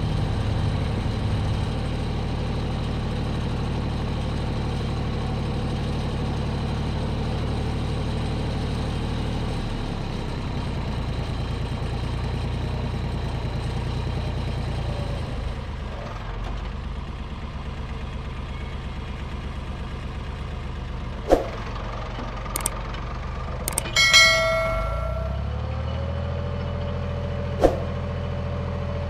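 Farm tractor engine running steadily as the tractor is driven across the garden, its note shifting slightly partway through. Near the end come a few sharp clicks and a short ringing chime.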